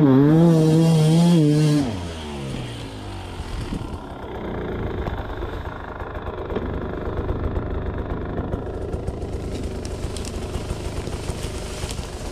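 Sherco enduro dirt bike engine revving with a wavering pitch. About two seconds in the revs fall away and the engine drops to a quieter, uneven low idle, with some light clattering near the end.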